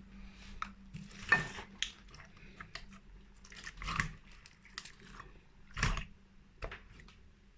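Slime being squished and poked by hand: irregular sticky clicks and crackles, with louder squelches about a second in, around four seconds and near six seconds.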